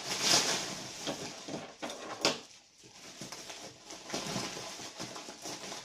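Rustling and crinkling of packaging as products are handled and taken out of an order box, with a sharp knock about two seconds in.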